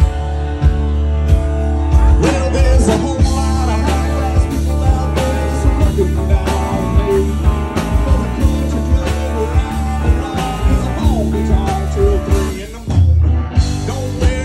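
Live country-rock band playing through a PA: electric guitars, bass and a drum kit with a steady beat. Near the end the band cuts out for a moment, then comes straight back in.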